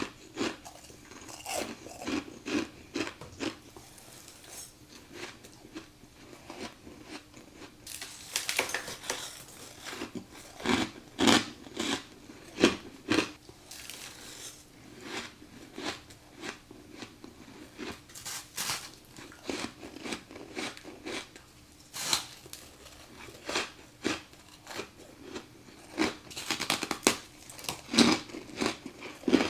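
Close-miked biting and chewing of crunchy ice: a string of sharp crunches at irregular intervals, some in quick clusters.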